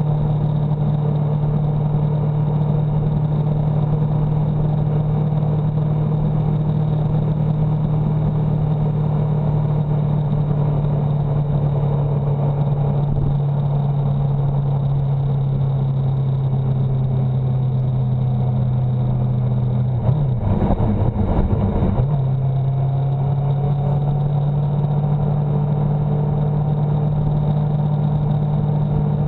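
Motorcycle engine running at a steady cruise, heard over road and wind noise. About twenty seconds in, its note dips and wavers for a couple of seconds, then settles again.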